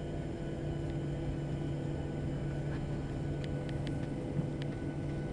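Steady hum and rush of air inside a Boeing 737-800 cabin on the ground after landing, with a few faint clicks a little past the middle.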